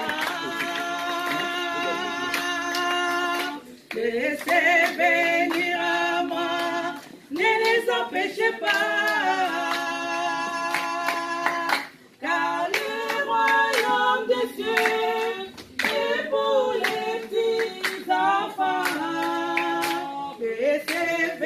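Church worship song sung without instruments, in held phrases a few seconds long with short breaks between, and hand clapping.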